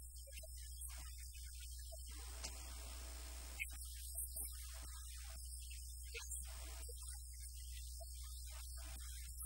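Steady low electrical hum, like mains hum in the audio chain, with a few faint ticks around the middle.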